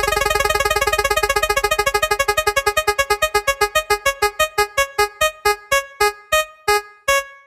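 Electronic keyboard-like music effect: the same bright note repeated rapidly, slowing down steadily until the repeats are well spaced near the end, like a winding-down sound effect.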